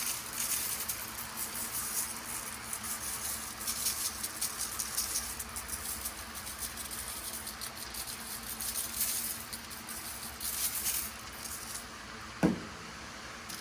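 Dry rub of salt, pepper, garlic and onion powder being sprinkled onto raw hamburger patties: a light, dry rattle and patter of grains, coming in several bouts.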